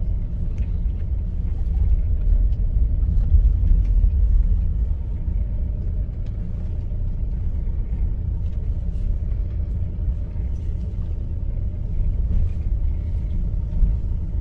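Steady low engine and road rumble of a Hyundai Starex camper van rolling slowly down a concrete track, heard from inside the cabin.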